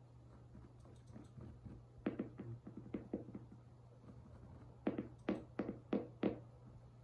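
A series of sharp knocks off-screen: a few softer taps about two seconds in, then five louder knocks in quick succession near the end.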